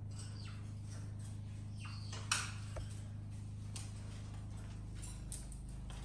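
A small dog pawing at a wire birdcage: scattered light clicks and rattles, with one sharp clack a little over two seconds in. A few short, falling animal squeaks come in between. A steady electrical hum runs underneath.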